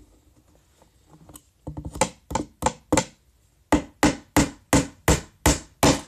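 Claw hammer driving a small 1¼-inch nail into a wooden beehive frame: four sharp strikes about two seconds in, a short pause, then seven more at a steady pace of about three a second.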